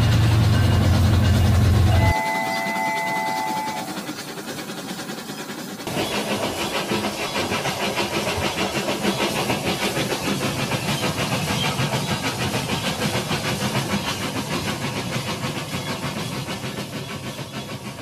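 Battery-powered toy trains running on plastic track. A loud low hum fills the first two seconds, then comes a short steady electronic whistle-like tone, and from about six seconds a fast, even rattle of motor and wheels over a hiss.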